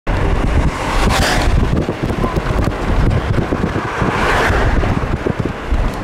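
Wind buffeting the microphone in gusts: a heavy, uneven low rumble with rushing hiss that swells strongly about a second in and again just past four seconds.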